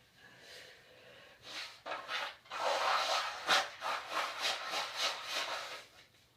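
A nose being wiped and rubbed, probably with a tissue: a run of quick, noisy rubbing strokes that grows louder about two seconds in and stops about six seconds in.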